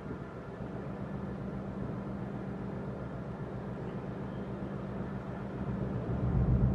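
Steady low drone of a passing container ship's engine carried over the water, growing louder about six seconds in, with wind noise on the microphone.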